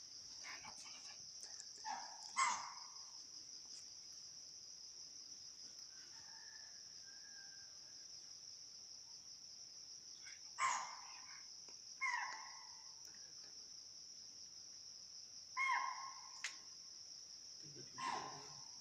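Steady high-pitched chirring of crickets or other insects, with about six short, loud animal calls breaking in every few seconds.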